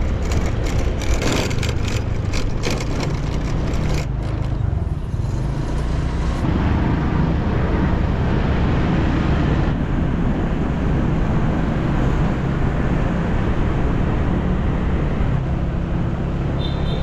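Motorbike engine running steadily while riding along a road, with crackly noise over the first four seconds.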